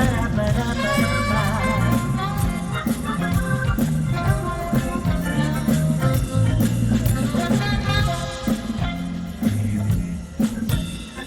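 A band plays an instrumental break: a wavering melody line over a moving bass line, with steady percussion that includes shaker- or rattle-like strokes.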